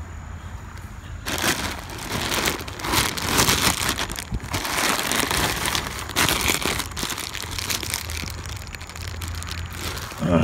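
Clear plastic bag crinkling irregularly as it is handled, starting about a second in, over a low wind rumble on the microphone.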